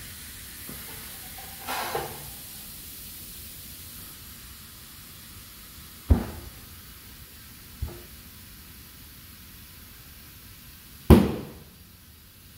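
Air hissing steadily into a truck tire on a tire changer, broken by four sharp bangs about 2, 6, 8 and 11 seconds in. The last bang is the loudest and rings on briefly: the tire's beads snapping onto the aluminum wheel's bead seats as it inflates.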